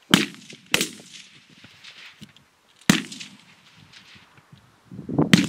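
Rifle shots on an open range: four sharp cracks, each with a short echo. Two come about half a second apart at the start, one about three seconds in and one near the end.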